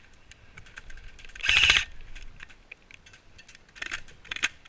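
Scattered sharp clicks and ticks of airsoft fire on the field, growing denser near the end. About a second and a half in there is one loud, short rattling burst of noise.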